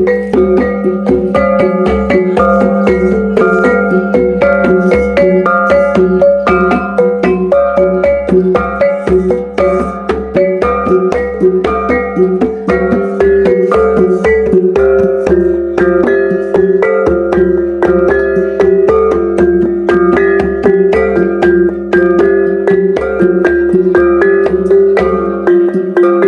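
Iban taboh gong music: a set of small tuned gongs struck in fast, dense melodic runs, over a sustained low gong tone and a steady deep beat. The deep beat drops out near the end while the gongs ring on.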